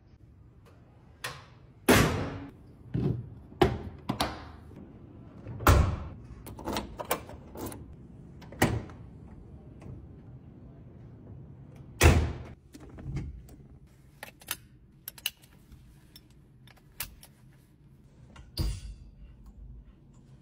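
A car's hood and door being worked: a series of separate clicks and thunks of latches, hinges and panels, a few of them much louder than the rest.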